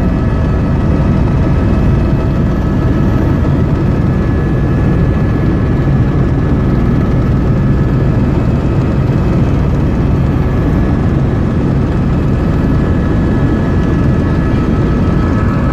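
Helicopter cabin noise in flight: the steady, unbroken drone of the engine and rotors, strongest in the low range, with a few faint steady whining tones above it.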